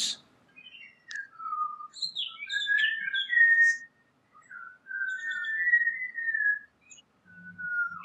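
Birds singing: clear whistled phrases that glide up and down in pitch, broken by short pauses.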